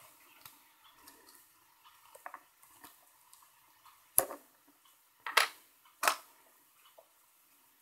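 USB connector and female-to-female adapter being handled and unplugged by hand, with three sharp clicks, the first about four seconds in and two more within the next two seconds, over faint rustling of the cable.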